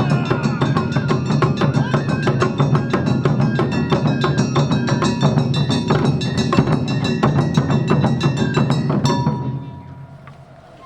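Awa Odori festival band playing a fast, driving rhythm on taiko drums and the clanging kane hand gong. The percussion stops about nine seconds in, leaving a single held high note, likely a shinobue bamboo flute.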